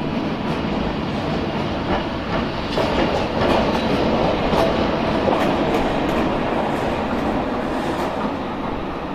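ČD class 163 electric locomotive running light past, its wheels clacking over rail joints and points. The noise swells and the clacks come thickest a few seconds in as it passes closest, then ease off near the end.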